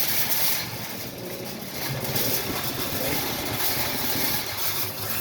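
Steady low rumble and hiss of a running engine.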